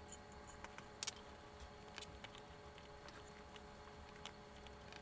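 Faint scattered clicks and ticks of small metal parts and tweezers as the top-plate dial of a Contax G1 camera is taken off and readjusted, with a sharper pair of clicks about a second in. A low steady hum runs underneath.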